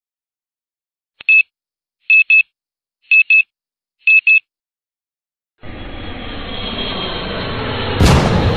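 Intro-animation sound effects: a short electronic beep, then three double beeps about a second apart, like a digital timer or alarm clock. After that a whoosh swells up for a couple of seconds and ends in a sharp hit near the end.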